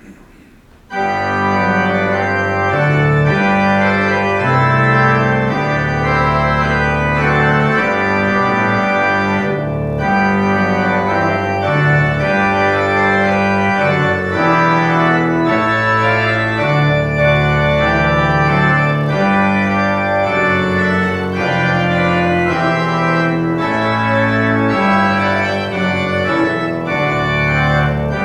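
Organ playing a prelude in full chords with a moving bass line, starting about a second in.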